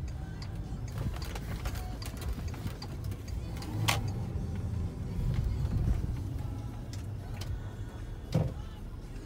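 Car engine and road noise heard from inside the cabin while driving slowly, a steady low rumble, with a sharp click about four seconds in and a short knock near the end.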